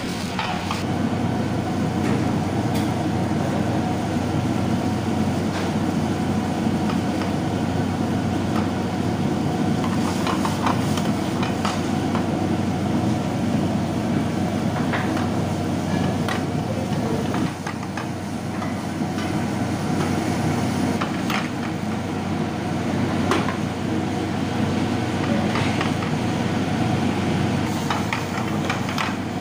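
Curry bubbling in a steel pan over the steady rush of a commercial gas burner flame. A steel ladle knocks and scrapes against the pan now and then as it is stirred.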